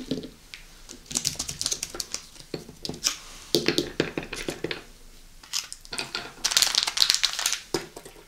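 Crinkling and crackling of packaging handled close to the microphone, in three spells about a second or so long.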